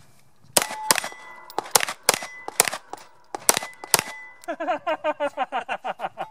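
CZ P09 9mm pistol fired about eight times in quick succession at steel plates, with the ringing clang of the steel targets after the hits.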